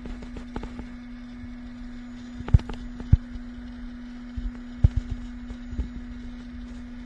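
A steady machine hum at one pitch, with several sharp knocks as objects are handled, the loudest about two and a half, three and five seconds in.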